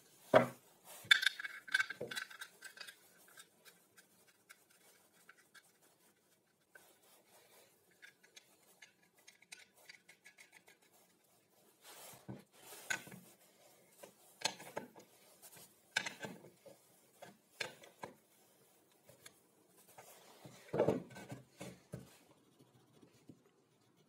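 Plywood jig pieces and metal hardware handled on a wooden workbench: a sharp knock just after the start followed by a brief ringing, then scattered knocks and clicks, with a busier cluster about three-quarters of the way through.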